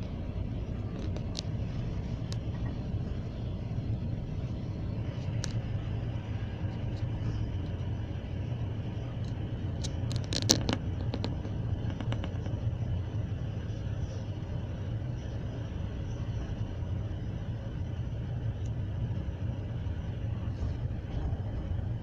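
Passenger train carriage running along the track, heard from inside: a steady low rumble with scattered light clicks, and a short burst of sharp knocks about ten seconds in.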